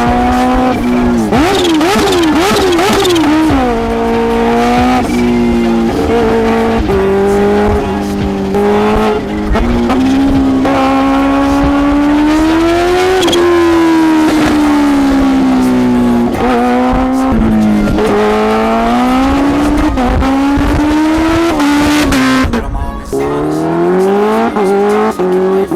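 Kawasaki Ninja H2R's supercharged inline-four engine running loud at high revs. A few quick blips of the throttle come about two seconds in, then the pitch climbs and drops in a series of steps.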